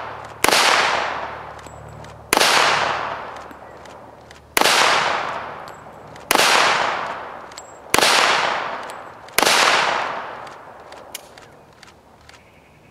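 Six shots from a Taurus PT1911 .45 ACP pistol, fired slowly about one every one and a half to two seconds, each followed by a long echo fading away. A few faint clicks come near the end.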